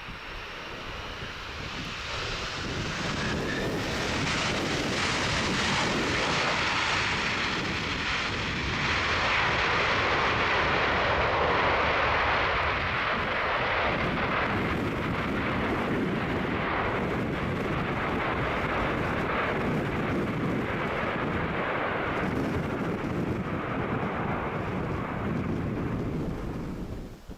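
Jet engine noise of a four-engine Boeing 747-400 freighter landing in strong wind. It swells over the first few seconds, is loudest about ten seconds in and stays loud, then cuts off suddenly at the end.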